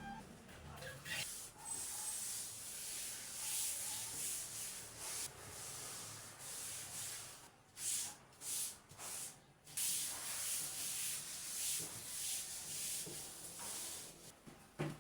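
Rubbing in uneven, hissy strokes, with a run of several short separate strokes about halfway through.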